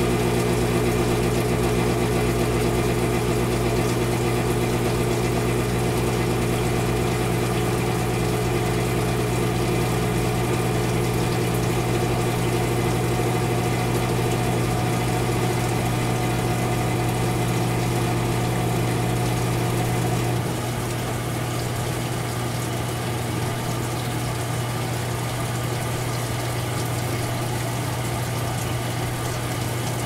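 GE Spacemaker WSLS1100 washing machine running with a steady hum. About two-thirds of the way through, the deep hum and several of its tones drop away and it turns quieter, leaving a lighter, noisier hum.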